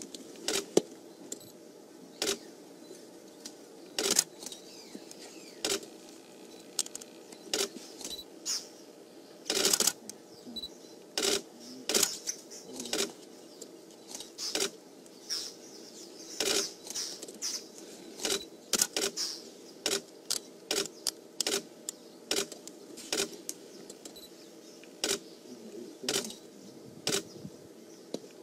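Camera shutters clicking irregularly, single shots and quick runs of frames, over a faint steady hum.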